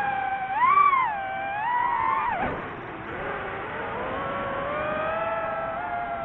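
DJI FPV drone's motors and propellers whining, the pitch swinging with the throttle. It rises and dips sharply in the first two and a half seconds, then settles lower and climbs slowly.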